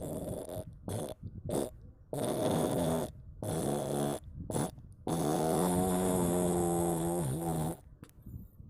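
A sleeping cat snoring: several short snoring breaths, then one long pitched snore of nearly three seconds, after which the snoring stops near the end.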